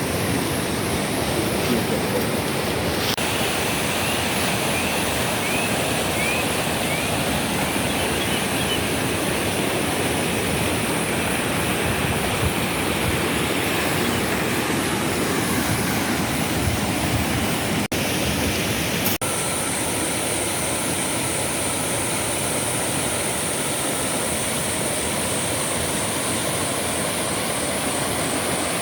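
Steady rush of a flowing river, with a few faint high chirps in the first third.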